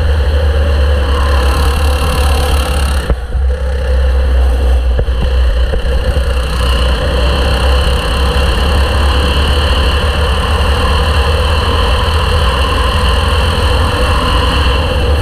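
Kart engine running at racing speed, heard from an onboard camera on the kart, over a strong steady low rumble. The engine note dips briefly about three seconds in, then carries on steadily.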